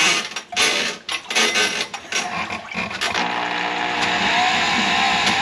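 Handheld drum drain auger running in stop-start surges, then steady from about three seconds in with a slight rising whine, as it spins its cable down a kitchen sink drain line to clear a grease clog.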